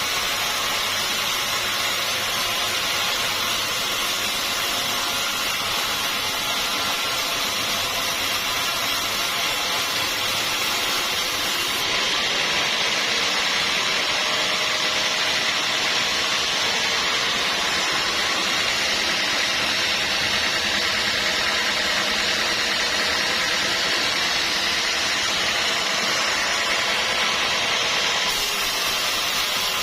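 Bandsaw sawmill running steadily, its engine and blade making an unbroken machine noise.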